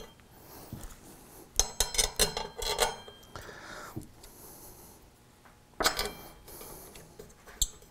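Steel brake-rotor bolts clinking against the rotor and wheel hub as they are set in their holes and started by hand. There is a run of quick metallic clicks about two seconds in, another about six seconds in, and a couple of single clinks near the end.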